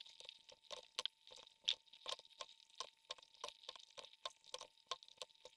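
Faint, irregular clicks and taps, several a second, of a pen stylus tapping and tracing on a graphics tablet while numbers are handwritten. A faint steady tone runs underneath.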